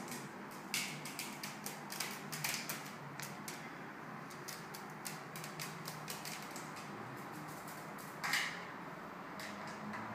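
Hooded crow's claws clicking and tapping irregularly on a tiled floor as it walks and hops, with a louder scuff about eight seconds in.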